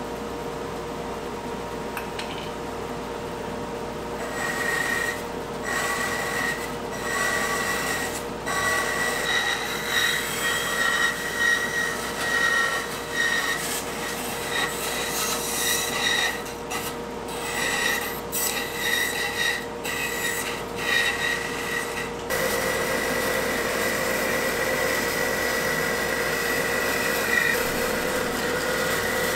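Bandsaw running, its blade rasping through a thick wooden board in a series of short cuts with brief pauses between them. The sound turns steady and continuous about two-thirds of the way through.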